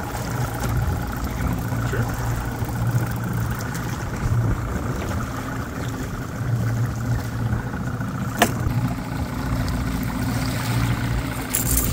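Outboard motor running steadily at trolling speed, an even low hum, with one sharp click about eight seconds in.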